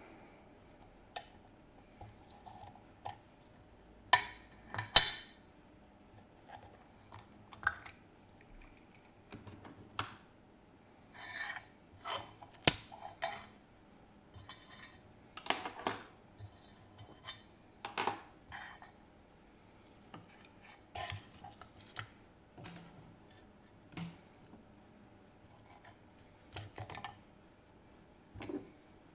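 Irregular small metallic clicks and clinks as a DOM Plura lock cylinder and metal tools are handled and taken apart.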